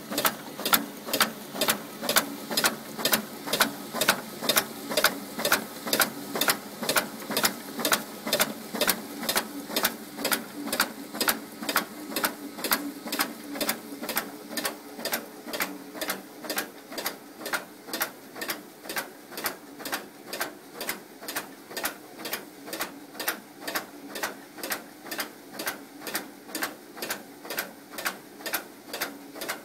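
AMS ATS-12 tabbing machine running, feeding mail pieces through one after another. It makes a fast, even clacking, about two to three clicks a second, over a steady motor hum.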